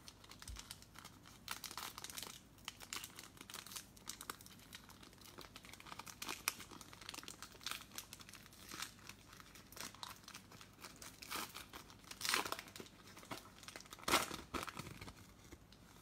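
Foil trading-card pack crinkling as it is handled and torn open, with two louder rips about 12 and 14 seconds in.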